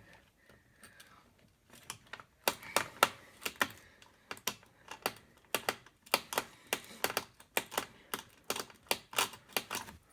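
Sharp, irregular clicking, two or three clicks a second, from a screwdriver working screws out of the plastic back of an Asus X53U laptop.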